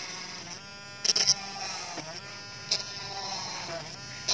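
Small electric hand drill running while its fine bit bores holes through a copper-clad circuit board. The motor's pitch sags and recovers as the bit loads up, with a few short harsh bursts, one about a second in and another near the middle.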